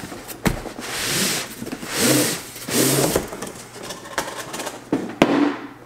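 Cardboard scraping and rubbing as a long boxed bat is slid out of its shipping carton, in several drawn-out scrapes, followed by a few sharp knocks of the box on a wooden table.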